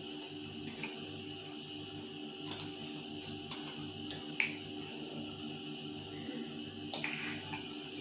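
A metal spoon tapping and scraping against a ceramic bowl while brownie batter is worked out of it into a plastic container: a handful of sharp clicks over a steady background hum.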